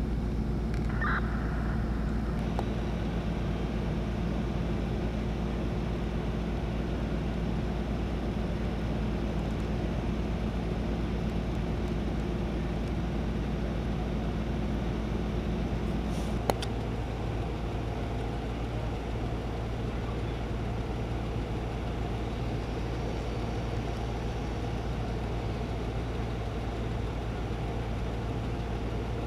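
Steady low drone of an idling fire engine's diesel engine. A sharp click comes about sixteen seconds in, after which the drone settles into a single lower, steadier hum.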